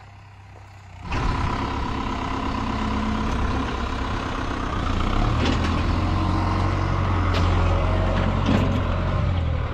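A faint distant engine hum, then from about a second in a farm tractor's diesel engine running loud and close as its front loader works, dumping manure into a trailer. A few sharp knocks stand out over the engine.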